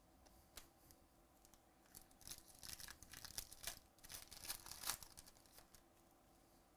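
Foil wrapper of a trading card pack being torn open by hand: a flurry of sharp crinkling and ripping crackles from about two seconds in, loudest just before they stop about five seconds in.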